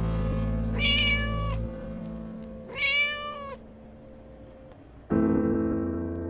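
A kitten meows twice, two short, high calls about two seconds apart, over soft piano music. A new piano chord sounds about five seconds in.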